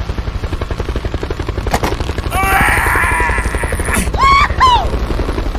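A fast, evenly pulsing engine sound runs throughout, with a burst of warbling chirps about two and a half seconds in and two quick bending squeals near four seconds in.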